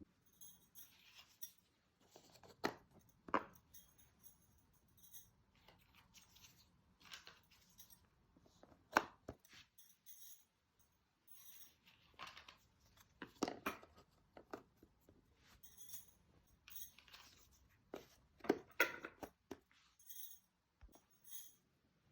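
Cardboard jigsaw puzzle pieces being handled: irregular clicks, taps and scratchy rustles as pieces are picked up, slid and pressed into place, with sharper taps about 3, 9, 14 and 19 seconds in.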